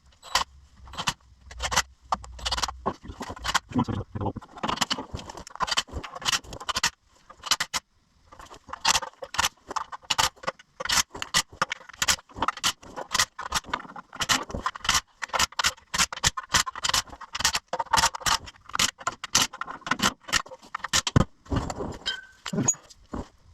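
Metal hand tools clicking and clinking in quick irregular runs, a ratchet wrench and bolts at work, as a new transmission oil pan is bolted onto a truck; a short pause comes about seven seconds in.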